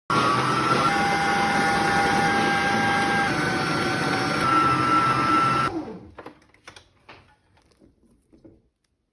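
Small electric kitchen appliance motor running steadily with a whine that steps slightly in pitch, then switched off suddenly about six seconds in, followed by a few light clicks and knocks.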